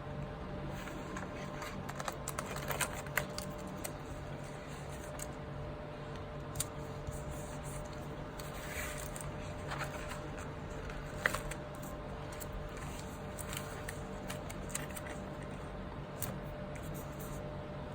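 Paper planner pages and sticker sheets being handled: scattered light clicks, taps and rustles as stickers are peeled and pressed down, over a steady low hum.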